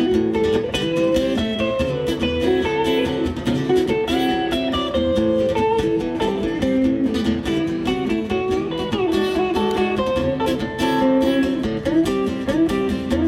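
Live blues guitar playing an instrumental break: single-note lines with bent notes over a steady low accompaniment.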